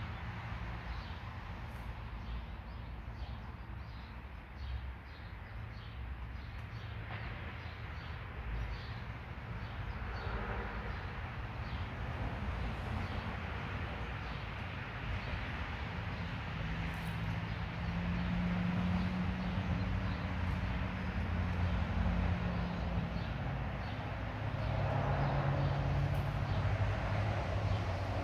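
Steady low rumble like distant traffic or a running motor, with a low hum that swells in about halfway through and again near the end. Faint short high chirps sound now and then in the first ten seconds.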